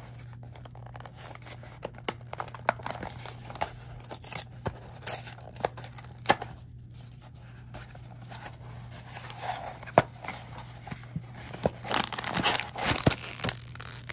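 Blind-box packaging being torn open and crinkled by hand: irregular sharp crackles and tears that grow denser near the end.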